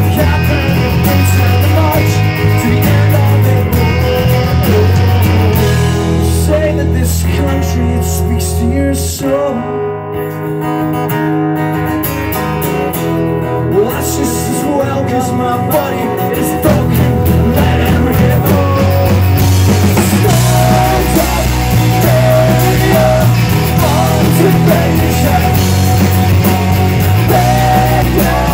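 Punk rock band playing live, with electric and acoustic guitars, bass, drums and a singer. The band thins out briefly about a third of the way in, with the cymbals falling away, then comes back in full.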